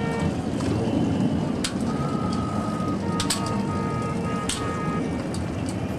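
Steady low rumbling noise of open-air wind and water on a camcorder microphone, with a few sharp clicks scattered through it.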